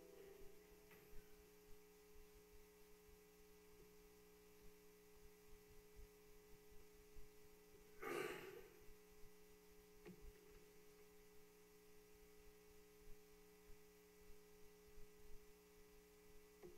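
Near silence: the room tone of a large church with a faint steady electrical hum, a few small clicks, and one brief noise about halfway through.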